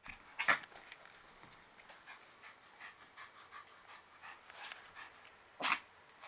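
Pomeranian sneezing sharply twice, about half a second in and again near the end, with small snuffles and snorts in between.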